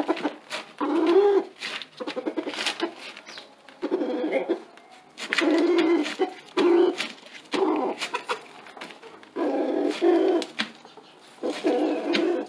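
Rooster giving a low, rapidly pulsed clucking call in about eight bursts of roughly a second each. This is the nest-showing call a rooster makes while settling into a spot to invite a hen to lay there.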